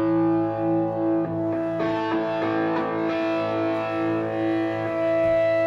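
Electric guitar with distortion and effects holding a ringing chord that pulses about twice a second, with a short run of picked notes in the middle, as a rock band's song rings out.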